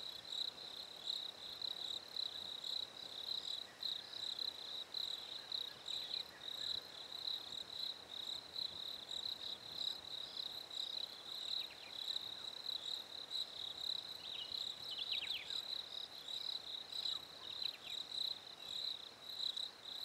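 Crickets chirping in a steady, evenly pulsing trill, with a few faint, short falling chirps now and then.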